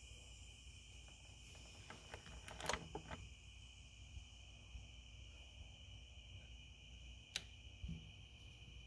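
Near silence with a faint, steady, high-pitched tone in the background. There are a few handling knocks and clicks about two to three seconds in, then a single sharp click about seven seconds in as the 1983 BMW R100RS's ignition key is turned to on, before the engine is started.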